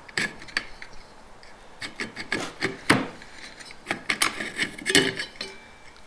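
Clutch plates and steels scraping and clicking against the splines of a 4L60E transmission's reverse input drum as they are worked loose by hand. The irregular metal scrapes and clicks are loudest about three seconds in and again about five seconds in.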